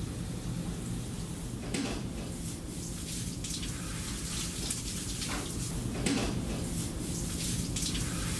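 Steady low hum of a ferry's engines under an even hiss, with a few short soft clicks.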